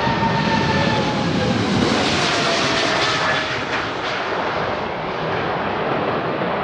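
Airbus A380's four jet engines passing close by on landing approach: a loud rushing roar with a whine that falls in pitch as it goes past. The roar grows brighter and peaks about two to three seconds in, then eases.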